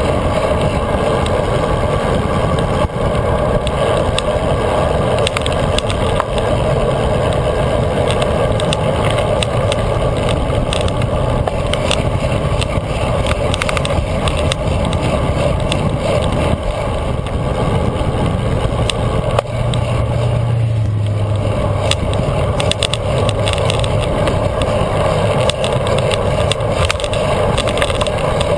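Steady wind rush and tyre noise picked up by a bike-mounted action camera on a road bike at speed, with frequent small clicks and rattles as the mount is jolted by the road surface.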